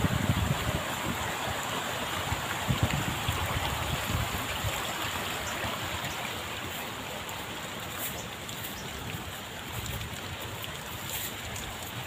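Steady rushing hiss of running water from a stream. Wind gusts buffet the microphone now and then, most strongly in the first second.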